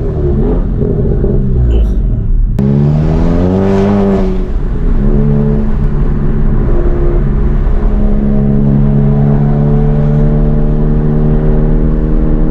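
Tuned Mk7 VW GTI's turbocharged four-cylinder engine and aftermarket exhaust under hard acceleration: the pitch climbs for over a second, drops at a gear change, then settles into a steady drone at constant revs.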